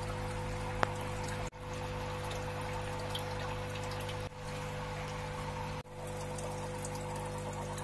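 Steady low electrical hum under a hiss, broken for a moment three times, with one sharp click about a second in.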